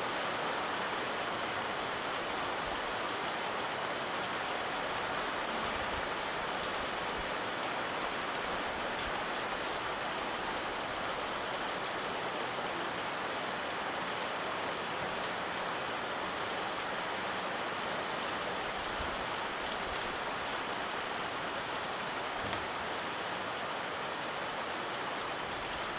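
Steady rain falling, an even hiss that holds unchanged.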